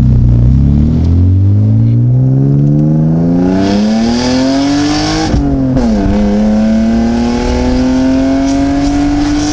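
Car engine at full throttle, climbing steadily in revs for about five seconds. The revs drop sharply at an upshift, then climb again more slowly in the next gear.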